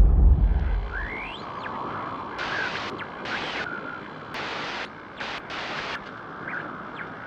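Sound effect of the GoPro logo intro. A deep rumble tails off at the start, then a static-like hiss with faint rising and falling whistles follows, its high part cutting in and out several times.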